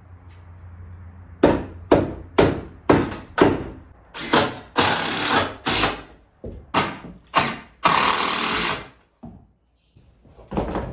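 Five sharp blows about half a second apart, like hammering on wood, then a run of longer rasping strokes and knocks from the cabin build.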